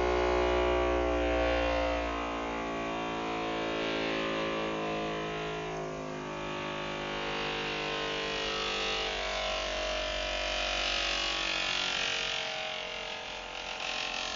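A door groaning as it moves: one long, buzzing, pitched creak with a slowly wavering tone that sounds like dubstep bass.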